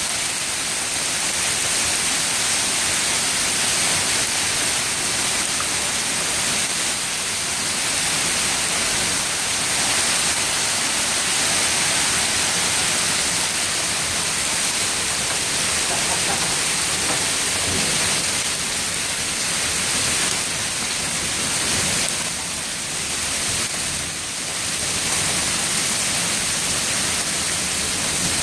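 Heavy hail and rain pounding down in a dense, continuous clatter and hiss, with small swells and lulls in intensity.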